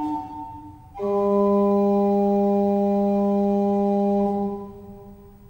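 Organ music in slow held chords: one chord dies away, and about a second in a new chord sounds and is held for about three seconds before fading out.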